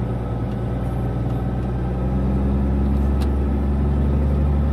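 Heavy-haul truck's diesel engine running, heard from the cab as a steady low drone that grows louder about two seconds in.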